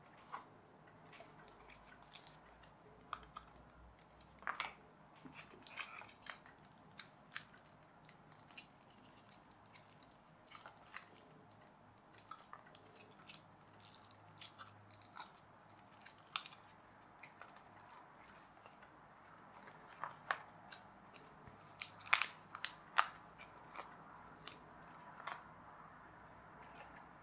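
Pre-cut pieces of a pull-back toy plane kit being pressed and slotted together by hand: irregular small clicks, crackles and creaks, with a run of louder snaps near the end.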